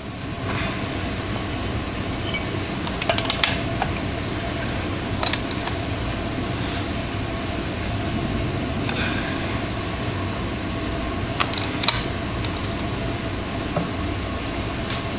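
Light metallic clinks and taps of a wrench on the rear sprocket bolts of a dirt bike, a few scattered knocks several seconds apart, over steady background noise.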